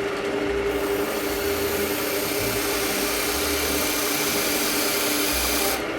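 Wood lathe running with a steady hum while the point of a skew chisel cuts into the spinning wood. The cut is a steady hiss that starts about a second in and stops just before the end.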